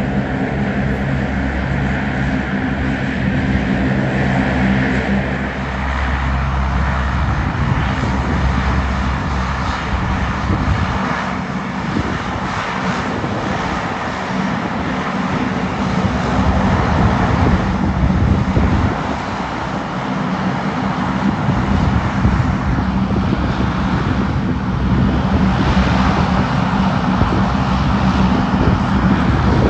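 Airliner engines running loud and continuous, with a low drone and a high whine that fades about five seconds in, then a broad noise that swells and eases.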